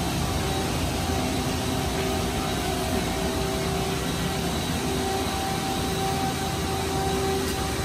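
Mazak Quick Turn Nexus 350-II CNC lathe powered up and running idle: a steady hum and whir with a faint steady whine through it.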